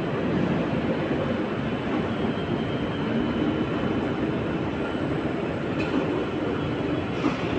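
Steady, unbroken machinery noise of a cement plant: a dense low rumble with a faint hum, at an even level throughout.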